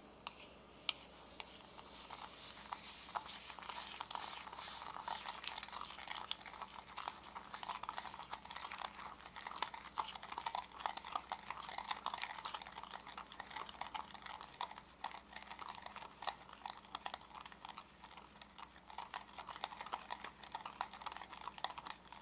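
Small wire whisk beating egg yolks and sugar in a glass bowl: rapid, continuous clicking and scraping of the wires against the glass.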